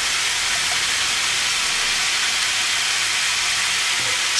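Minced meat and onions frying in oil in a pan: a steady sizzle.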